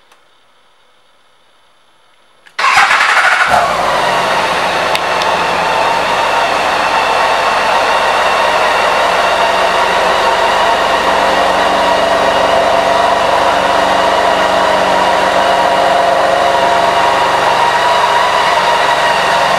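BMW K 1600 GTL's inline-six engine started about two and a half seconds in: a faint click, then it catches with a brief flare in revs and settles into a steady idle.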